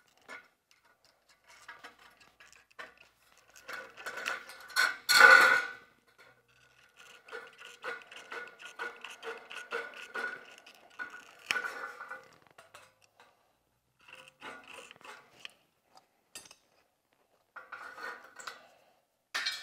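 Hand tin snips cutting a leg out of a sheet-metal window trim piece: a run of short snips with the thin metal panel rattling and ringing. The loudest burst comes about five seconds in, with further cutting later on.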